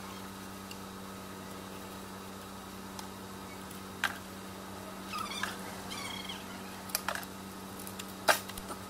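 Sharp metal clicks and knocks from hand tools on the engine's timing-belt end, three of them standing out, the loudest near the end, over a steady electrical hum. A few short high chirps or squeaks come around the middle.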